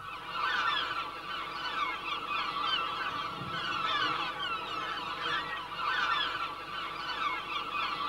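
A colony of large gulls calling, many short overlapping cries, beginning about half a second in.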